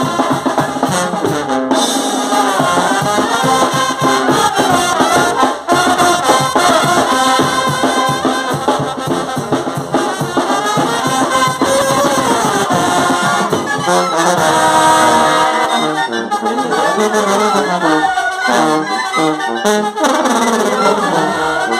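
Mexican banda brass band playing: trumpets, trombones and sousaphones over a steady drum beat, with a held chord about fourteen seconds in.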